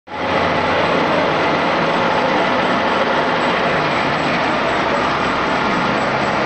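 Milling machine running steadily during gear-cutting work, a constant loud mechanical noise with a low hum underneath.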